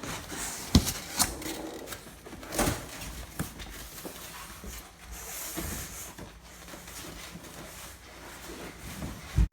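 A refrigerator's packaging being handled: scattered knocks and thuds, with a stretch of rustling about five seconds in and a sharper thud just before the end.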